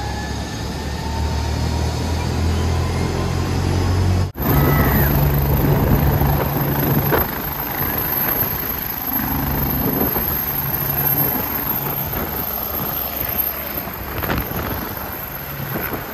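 A helicopter running as it leaves: a steady rotor and engine hum, with a slowly rising whine in the first four seconds. About four seconds in, the sound breaks off for an instant and comes straight back, as the helicopter lifts off and climbs away.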